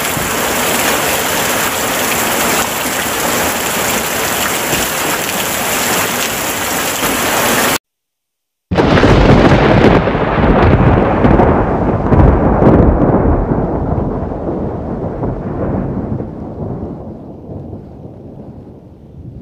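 Steady heavy rain that cuts off abruptly about eight seconds in. After a moment of silence comes one long, loud clap of thunder rumbling down, its highs fading first until only a low rumble remains.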